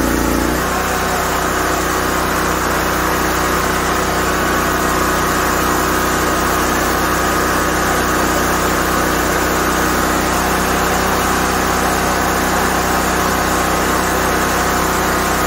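Generac LP5500 propane generator's engine running steadily, with a shift in its low hum about half a second in.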